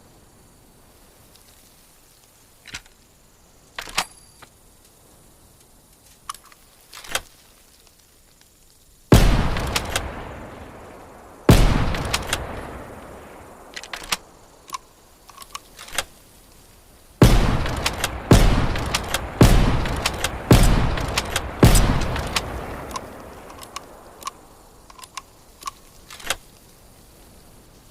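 Remington Model 700 bolt-action rifle firing seven loud shots, each followed by a long fading echo: two shots a couple of seconds apart, then five in quick succession about a second apart. Faint sharp clicks come before and between the shots.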